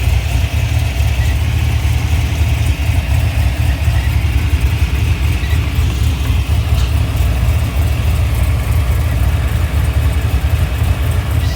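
Chevrolet 6.0 L LS V8 with an aggressive camshaft and long-tube headers idling steadily with one dead cylinder. The misfire comes from a failed ignition coil on cylinder 1.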